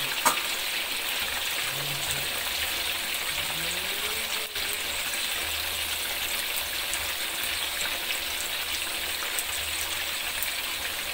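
Chicken pieces deep-frying in a wok of hot oil: a steady sizzle and crackle of bubbling oil, with one sharp click a moment in.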